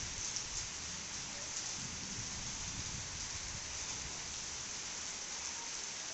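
Heavy rain falling steadily: an even, dense hiss of rain on the ground, plants and balcony, with a low rumble underneath.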